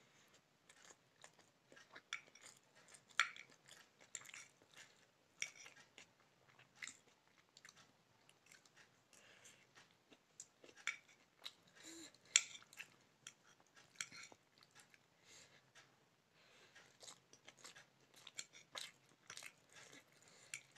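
A person chewing a mouthful of noodles close to the microphone: quiet, irregular wet clicks and small crunches, several a second.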